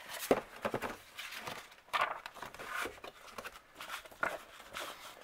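Pages of a paper instruction booklet being turned and handled: an irregular run of rustles and crackles, loudest at the very start and about two seconds in.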